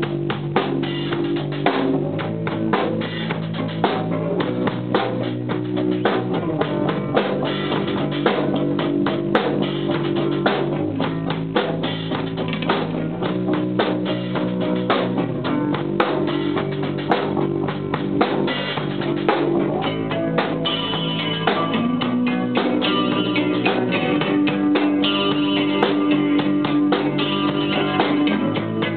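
Music played by a drum kit and guitar, with a steady beat of drum strikes under sustained guitar notes that change every second or so.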